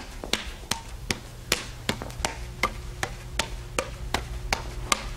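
Juggled axes' handles slapping into the hands as they are caught, in an even rhythm of sharp smacks about two and a half a second, over a low steady hum.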